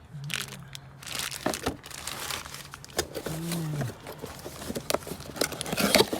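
Plastic packaging crinkling and rustling as new parts are handled and unwrapped, with scattered clicks of handling.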